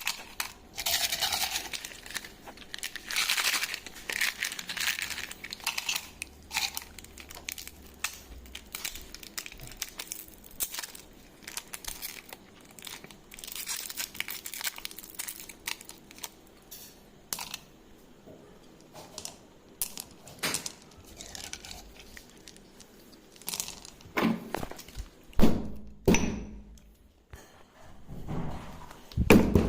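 Wrappers crinkling and tearing as they are handled, with scattered taps and knocks, and a few louder thumps near the end.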